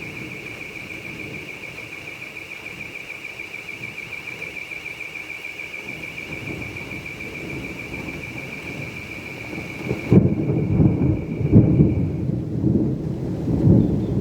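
Thunder rumbling, building gradually and then breaking into loud rolling peaks about ten seconds in. A steady, rapidly pulsing high trill runs over it and stops a couple of seconds after the loud thunder begins.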